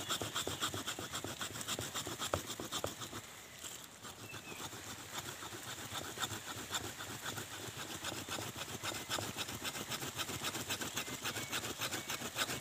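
A hand saw cutting through a thick root of a serut tree (Streblus asper) in rapid back-and-forth strokes. The strokes ease briefly at about three seconds in, then carry on.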